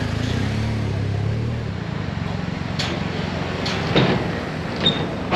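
Vehicles driving off a car ferry across its steel loading ramp. A vehicle engine runs low and steady for the first second or two, then come several metallic clanks as a van's wheels roll over the ramp plates, the loudest about four seconds in.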